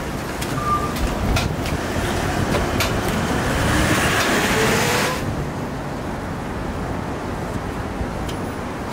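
Eggs being cracked onto cabbage on a hot flat-top teppan griddle: sharp taps of eggshells over a steady sizzling hiss. The hiss stops abruptly about five seconds in, leaving a duller steady background noise.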